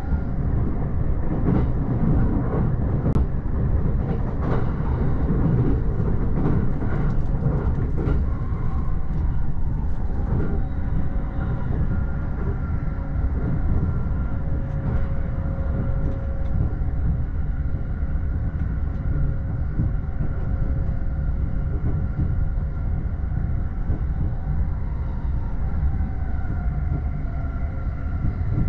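E231 series commuter train running at speed, heard from the upper deck of its double-decker Green car: a steady low rumble of wheels on rail with faint steady tones over it. A run of short clacks and knocks comes in the first ten seconds or so, then the rumble carries on evenly.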